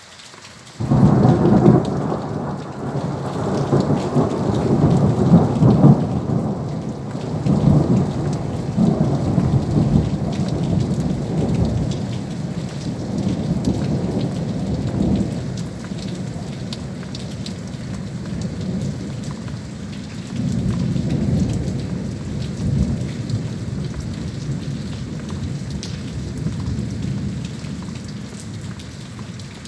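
Thunder with steady rain: a sudden loud clap about a second in, then a long rolling rumble that swells again several times and slowly dies away.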